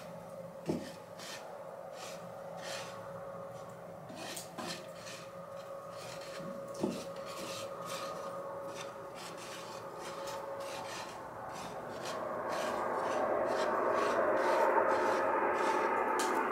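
Hands rubbing, squeezing and stirring flour in a wooden bowl: repeated dry scratchy rustles, with a couple of knocks against the bowl about a second in and near the middle, and the rustling growing louder toward the end.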